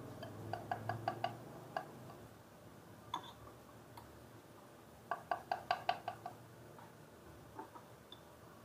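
A metal spoon clinking against the slow cooker's ceramic pot and a blender jar as cooked baby food is scooped across: two quick runs of light clinks, about six a second, one around a second in and one at about five to six seconds, with a few single taps between.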